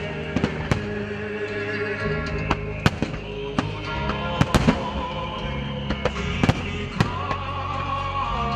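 Aerial firework shells of a starmine barrage bursting in quick, irregular succession, a dozen or so sharp reports, over music with sustained chords.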